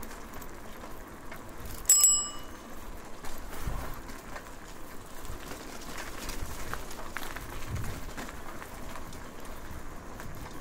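A bicycle bell rings once: a single sharp ding about two seconds in that fades quickly, over steady background noise.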